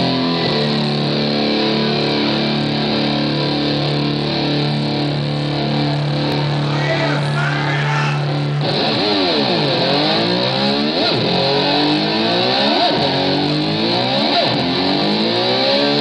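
Electric slide guitar imitating a motorcycle. A held, droning note sustains for about eight and a half seconds, then gives way to repeated sweeping glides up and down in pitch, like an engine revving.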